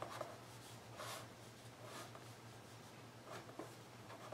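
Faint scratching of a pen on a book page as short drawing and shading strokes are made, a few separate strokes, over a steady low hum.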